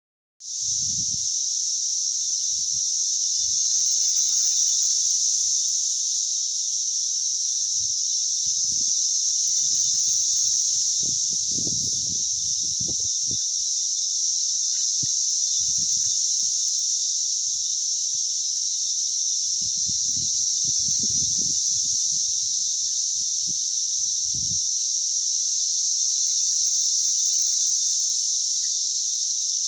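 Cicadas singing in a dense chorus: one continuous, steady, high-pitched buzz that starts about half a second in and never breaks. A few low rumbles come and go underneath it.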